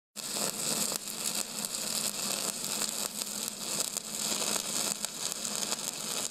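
A steady crackling hiss that cuts in abruptly and holds evenly.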